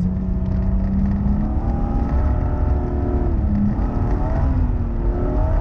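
Rally car engine running hard at speed, heard from inside the cabin, its pitch rising and falling several times, over a steady low rumble of tyres on a snowy gravel road.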